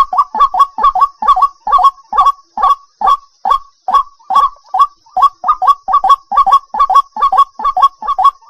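White-breasted waterhen calling: a fast, unbroken series of short, harsh croaking notes, about three a second. This is a recording of the call meant for playback as a lure to draw in the birds.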